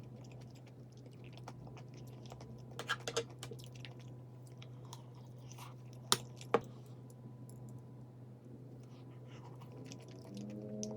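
A person chewing food, with a cluster of short clicks about three seconds in and two sharp clicks a little after six seconds, over a steady low hum.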